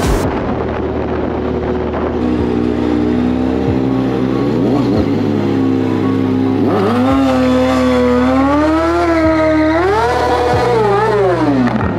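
Kawasaki ZX-6R inline-four sport bike engine revving as it is ridden, its pitch rising and falling with the throttle several times in the second half. Background music with a deep bass line runs underneath.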